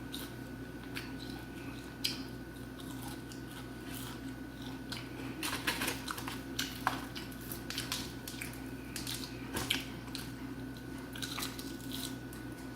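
Eating sounds at close range: chewing, with scattered soft clicks and taps, over a steady low hum.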